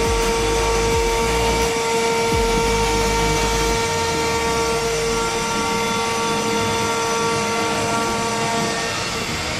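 Spindle of a four-head CNC router running with a steady high whine while its bit mills a wooden panel, over a constant rushing cutting noise.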